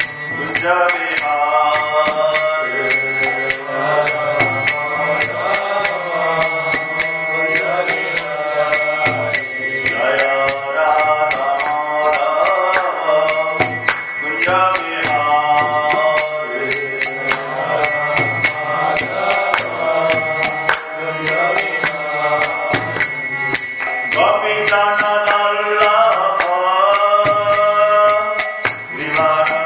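A man singing a devotional chant (kirtan) to a steady rhythm of small hand cymbals (karatals) clashing and ringing.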